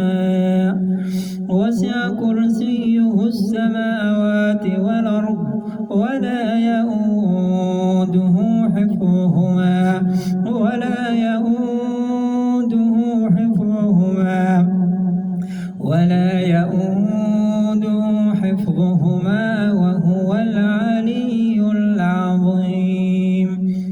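A man chanting Qur'anic recitation in a slow, melodic style. He holds long drawn-out notes with ornamented turns in the melody.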